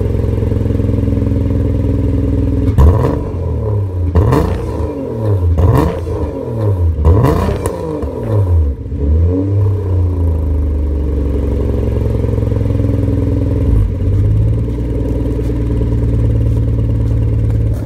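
EG33 3.3-litre flat-six engine swapped into a 1998 Subaru Legacy GT, idling through a custom catless 2-into-1 exhaust with a 3-inch resonator and a repacked Cobb muffler. About a third of the way in it is blipped in about five quick revs that rise and fall back to idle, then settles into a steady idle, with one small blip a little later.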